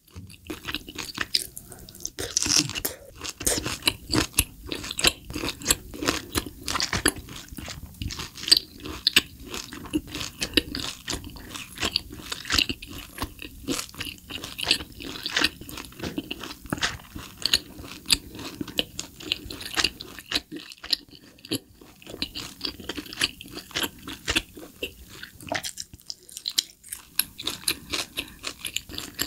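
Close-miked chewing of grilled Hanwoo tomahawk steak: dense, wet clicks and crunches of the meat being chewed, pausing briefly twice in the second half.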